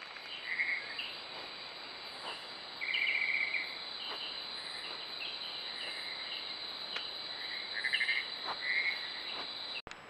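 Night-time rainforest insect chorus: a steady high-pitched insect drone with short pulsed chirping trills every second or so, of crickets and frogs. It breaks off abruptly near the end.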